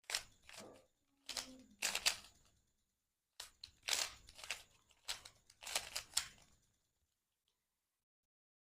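Plastic Rubik's cube being turned quickly in a speedsolve, its layers clicking and rattling in four short bursts of several turns each, then falling silent near the end.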